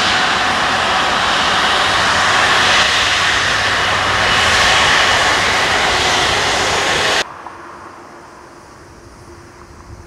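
Airbus A330-200's Rolls-Royce Trent 700 jet engines running loud and steady with a high whine as the airliner moves past at close range on the ground. The sound cuts off suddenly about seven seconds in, leaving only a faint, distant steady hum.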